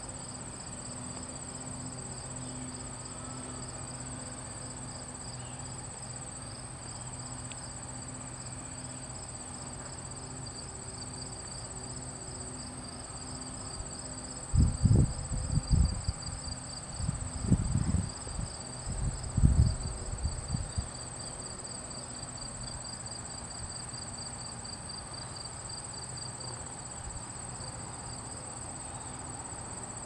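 Meadow insects chirring without a break: a steady high whine under a fast, pulsing trill. In the middle of the stretch, gusts of wind buffet the microphone for several seconds with loud low rumbles.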